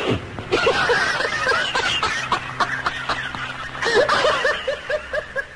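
Laughter: a quick run of short repeated "ha" sounds that dies away near the end.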